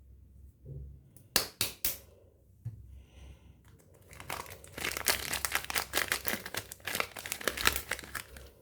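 Soap packaging crinkling as it is unwrapped by hand: a few sharp crackles about a second and a half in, then dense crinkling from about halfway through to near the end.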